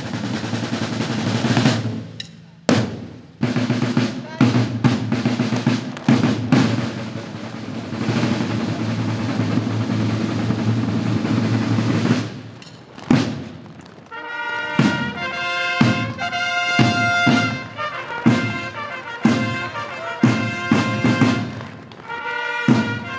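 Parade drums: a snare drum roll with bass drum for about the first half. Then brass joins with a fanfare of held notes over separate drum strokes.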